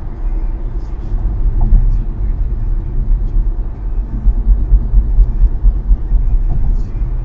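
Car driving on an expressway: a steady low rumble of road and tyre noise with engine drone, fluctuating slightly.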